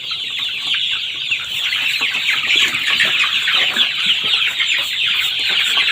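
Many chickens calling at once: a dense, steady chorus of short, high-pitched calls.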